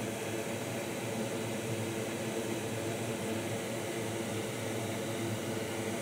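Steady background hiss with a faint hum, like a fan or air handling, holding at one level with no distinct events.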